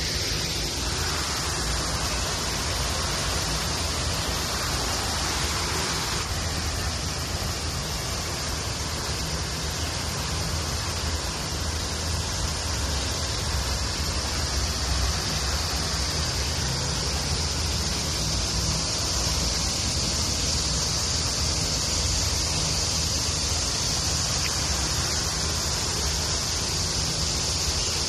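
Water from a park fountain's jet falling into a pond: a steady rushing hiss with a low rumble underneath.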